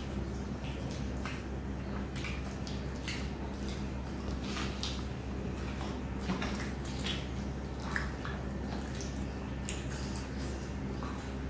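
Eating by hand: fingers mixing and squishing rice with thick dal on steel plates, with irregular wet clicks and smacks of chewing. A steady low hum runs underneath.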